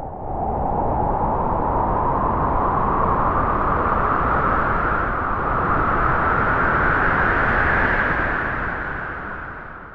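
A gust of wind blowing, swelling to a steady rush with a whistling pitch that slowly rises, then falling and dying away near the end.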